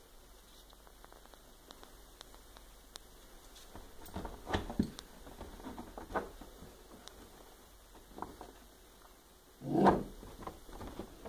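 West Highland white terrier pawing and scrabbling at a wall after an insect: scattered light claw clicks and scratches, a few louder scuffles about four to five seconds in, and one short loud burst near the end.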